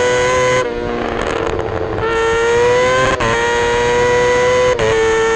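Racing sportbike engine held at high revs on track, a loud steady high-pitched howl heard through a side-mounted onboard action camera, with wind rush. The note wavers slightly and breaks briefly a couple of times, near the middle and near the end.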